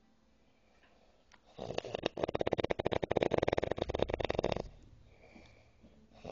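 A man asleep drunk, snoring heavily: after a quiet pause, one long, loud snore of about three seconds with a fast fluttering rattle starts about a second and a half in, followed by softer breathing.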